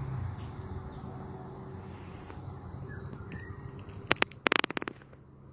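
Outdoor background with a steady low hum and a couple of faint bird chirps, broken about four seconds in by a quick run of sharp clicks and crackles.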